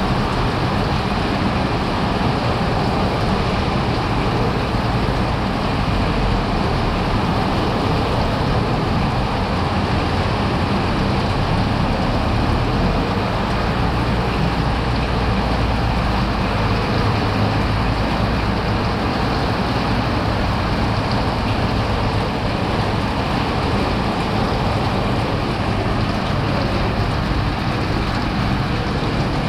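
Heavy rain pouring down steadily, a constant hiss of falling water. A low rumble grows stronger for a few seconds around the middle.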